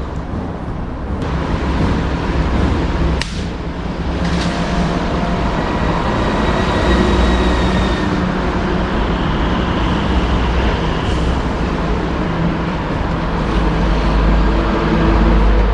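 Steady mechanical running noise with a heavy low rumble and a few faint held tones, broken by one sharp click about three seconds in.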